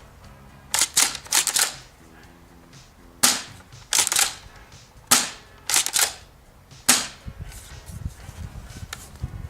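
Cyma CM.355 spring-powered pump-action airsoft shotgun being fired and worked: a string of sharp cracks and clacks, some in quick pairs, over about six seconds, then it stops.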